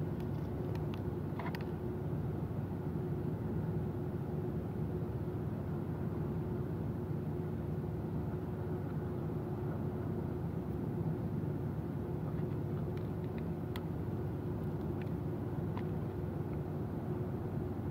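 Steady low mechanical hum with a constant drone, with a few faint clicks and smacks of eating fried chicken by hand.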